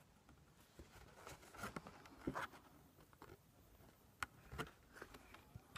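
Near silence with faint scattered taps, clicks and rustling, as of something being handled.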